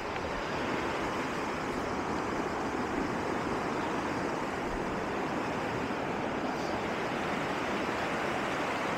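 Steady, even rushing of fast-flowing water, with no breaks or changes.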